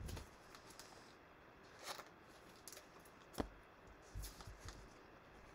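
Faint rustling and a few light clicks and taps of trading cards being handled and set down, with the sharpest click about three and a half seconds in.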